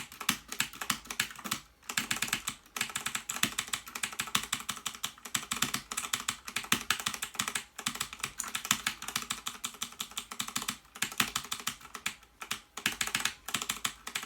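Clicky blue mechanical key switches on a VictSing tenkeyless keyboard, tapped rapidly and continuously in a dense stream of clicks, with a few brief pauses.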